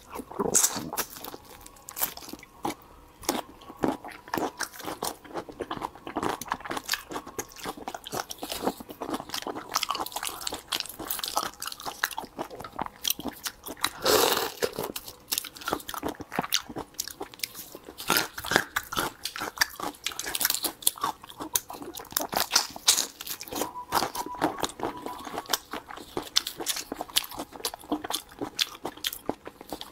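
Close-miked eating of raw marinated shrimp: wet sucking at the shells, shell cracking and peeling, and chewing, as a dense run of small clicks and smacks with a few longer slurps.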